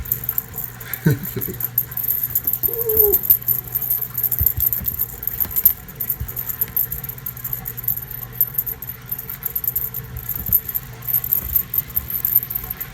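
A washing machine runs with a steady low hum under frequent light rattling and jingling from a cat toy being batted about.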